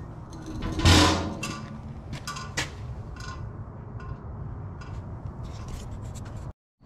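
A loud metallic clunk about a second in, then scattered sharp clicks and knocks over a low steady workshop hum. The sound cuts out abruptly just before the end.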